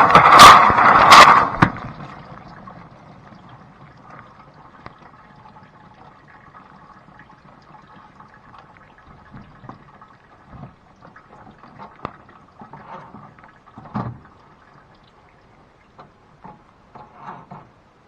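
Blanco dishwasher washing: water from the spray arms splashes loudly in a few pulsing swishes, then drops away about two seconds in to a faint water sound with scattered small knocks and clicks.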